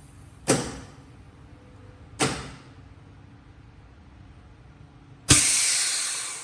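Double-chamber vacuum packing machine working through its cycle: the machine runs with a steady low rumble, broken by two sharp valve clicks, each with a short hiss, about half a second and two seconds in. A little after five seconds a loud click comes, then a long hiss of air rushing back into the chamber as it vents, fading over about a second, and the low running stops.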